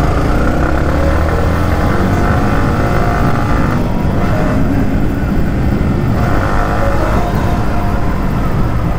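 Yamaha MT-15's 155 cc single-cylinder engine running while the motorcycle is ridden in traffic, its pitch rising and falling with the throttle.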